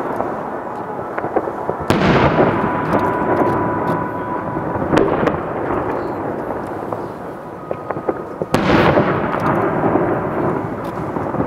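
Aerial fireworks shells bursting: two big booms, about two seconds in and again near the end, each followed by a long rolling echo like thunder, with scattered crackling pops between them.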